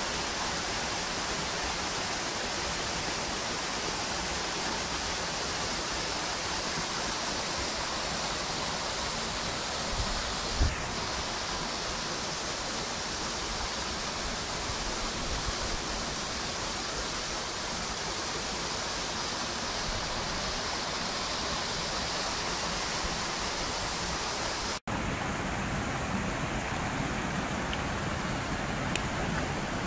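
Steady rush of water from a small waterfall and a mountain stream running among boulders, with one dull thump about a third of the way in and a brief dropout near the end.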